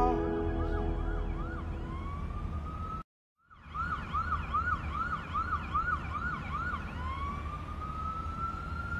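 Electronic dance music in a breakdown: a siren-like synth sweeping up and down in quick repeated arcs, about three a second, then one long rising sweep, over a steady low bass. The sound cuts out completely for about half a second about three seconds in.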